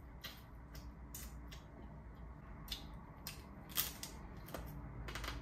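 Mouth sounds of eating snow crab: smacking and sucking the meat out of a crab leg shell, heard as a string of short, sharp clicks, the sharpest about two-thirds of the way through.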